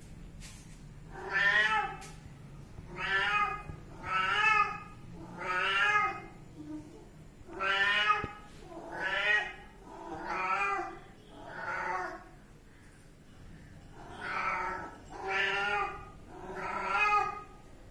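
Kitten meowing over and over, about eleven wavering calls each under a second long, roughly one a second, with a short pause about two-thirds of the way through.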